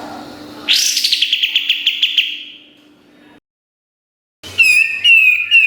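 Kapas tembak songbird singing: a rapid trill of about a dozen sharp notes starts about a second in and fades away. After a brief silence, a run of clear, falling whistled notes comes near the end.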